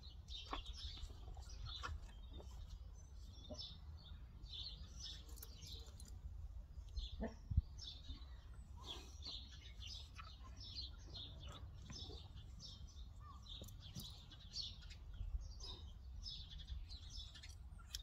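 Small birds chirping and singing throughout, over a low steady rumble, with a few faint clicks and one sharper click about seven and a half seconds in.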